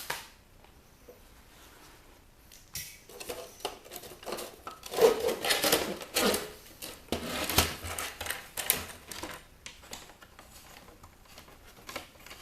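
Clicking, knocking and rattling of plastic and metal parts being handled while an electronic movie player is taken apart, loudest in a cluster of knocks in the middle.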